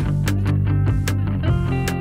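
Background music: a guitar-led track with a bass line and a steady beat.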